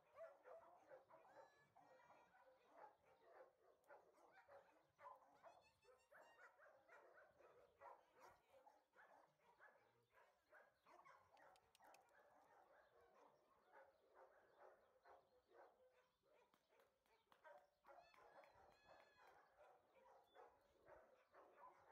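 Faint chorus of many kennelled dogs barking and yipping without a break, with a few higher yelps here and there.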